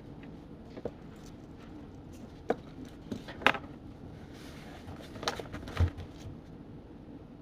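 Study cafe ambience: a steady low background hum with scattered small clicks and knocks, the sharpest about three and a half seconds in and another pair near six seconds.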